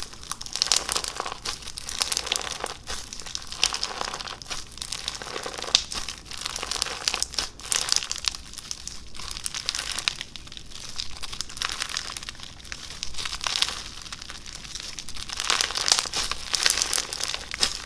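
Slime being squeezed and poked by hand, making a continuous fine crackling and popping that swells and eases.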